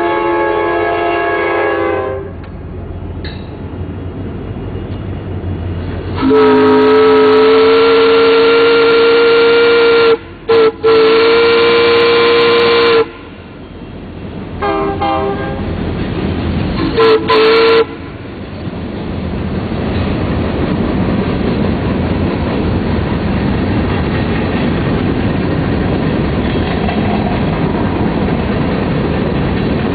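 Steam chime whistles blowing in several blasts: one ending about two seconds in, a long blast from about six to thirteen seconds broken twice briefly, then two short blasts. From about eighteen seconds the steady rumble and wheel noise of a passing Union Pacific train builds and carries on.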